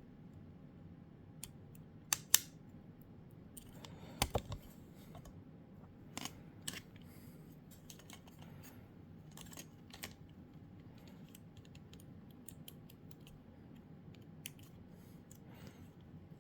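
Scattered small clicks and taps of a PS4 controller's plastic parts being handled during repair, with a few louder clicks about two seconds in and again about four seconds in.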